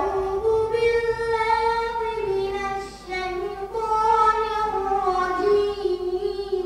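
A boy reciting the Quran into a microphone in the melodic tilawat style, holding long drawn-out notes that glide slowly in pitch, with a brief breath about three seconds in.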